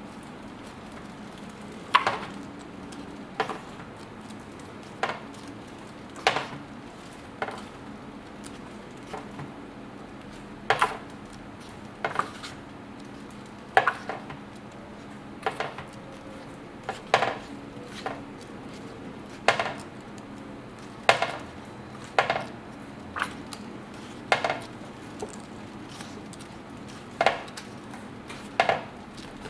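Pages of a thick art book being turned by hand, one after another: a crisp paper snap at each turn, coming irregularly every second or two, about twenty in all.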